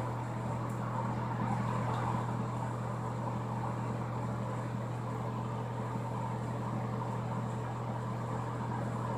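Steady low hum with a faint even hiss underneath, unchanging throughout: constant background room noise from a running appliance or electrical hum.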